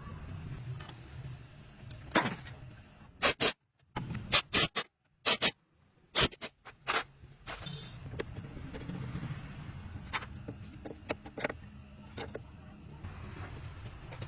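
A quick series of sharp knocks and clacks, about a dozen, between about two and eight seconds in, over a steady low hum: tools and metal parts struck and handled during truck rear axle work.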